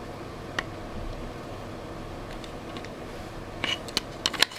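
Airsoft Glock-17 gas blowback pistol and its magazine being handled: one sharp click about half a second in, then a quick run of sharp clicks near the end as the magazine is slid up into the grip.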